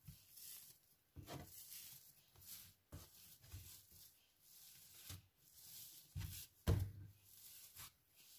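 Hands pressing and kneading a large ball of risen bread dough on a floured countertop: faint, irregular soft thumps and patting, with one louder thud about two-thirds of the way through.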